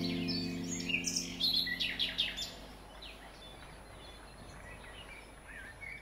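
Recorded rainforest bird calls, quick chirps and whistled glides, over a held music chord that fades away in the first couple of seconds. The chirping is busiest a second or two in, then carries on more sparsely.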